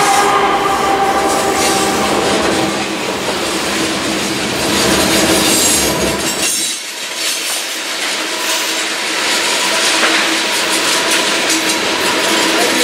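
A train passing close by: the tail of a horn fades out in the first couple of seconds, then the cars roll past with clicking over rail joints and a faint squeal from the wheels. The low rumble drops away about halfway through, leaving a lighter rattle and hiss.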